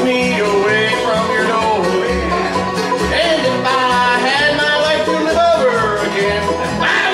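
Live bluegrass band playing: banjo, acoustic guitars and upright bass, with a man singing the lead vocal over them.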